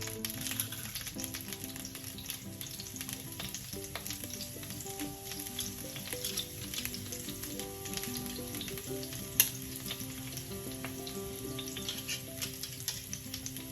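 Garlic sizzling as it fries in oil in a pan, stirred with a utensil that clicks against the pan, with one sharp tap about nine and a half seconds in. A soft background melody plays underneath.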